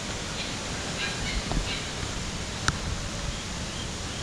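Steady rushing of falling water, with a low rumble, a few faint high chirps and one sharp tap about two and a half seconds in.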